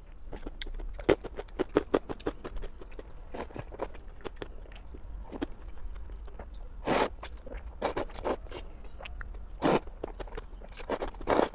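A person eating noodles close to the microphone: wet chewing and lip clicks, then a few short, loud slurps as strands of noodles are sucked in, in the second half.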